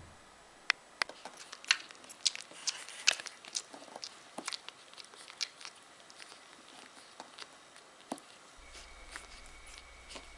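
Newborn Parson Russell terrier puppies suckling at their mother: an irregular scatter of small, sharp wet clicks and smacks, busiest in the first half and thinning out later.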